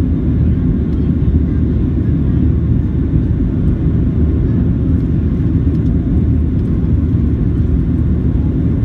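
Steady low rumble inside the cabin of a Boeing 737-700 in flight: its CFM56-7B turbofan engines and the airflow over the fuselage, heard from a window seat by the wing.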